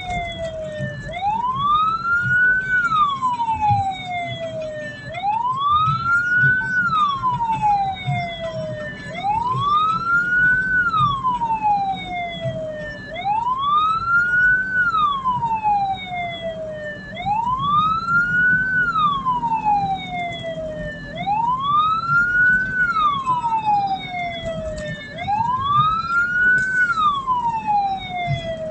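Hearse's siren wailing in a steady cycle: it rises quickly and falls slowly, repeating about every four seconds, over steady engine and road rumble.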